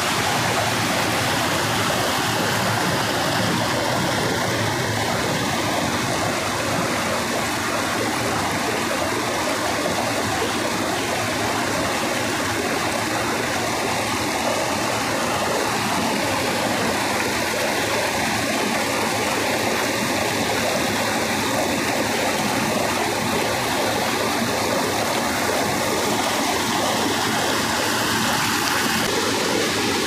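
River running in a steady, even rush of water.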